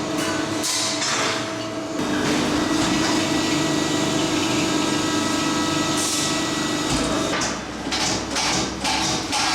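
Large press brake running with a steady machine hum, with a run of sharp metal knocks and clanks near the end.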